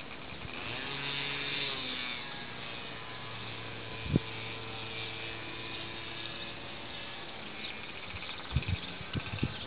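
Faint outdoor background with a low, steady motor-like hum, a single knock about four seconds in and a few more knocks near the end.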